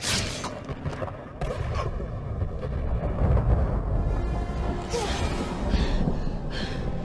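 Dark, tense film score with deep booming hits and a low rumble that swells about halfway through. A sharp hit opens it, and whooshing sweeps come near the end.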